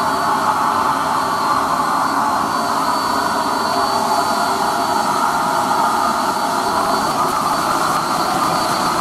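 Spray-tan machine running: the turbine blower and the spray gun give a steady, loud rushing hiss with a thin high whine in it.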